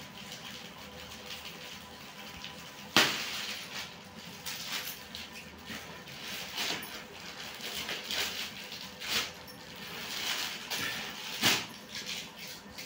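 Clear plastic garment bags rustling and crinkling as packed kurtis are handled, with a sharp, loud crackle about three seconds in and another near the end.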